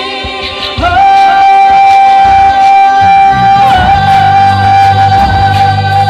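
A woman singing live through a small amplifier, holding one long high note from about a second in, briefly bending it and holding it again. An electric bass guitar comes in underneath about halfway through.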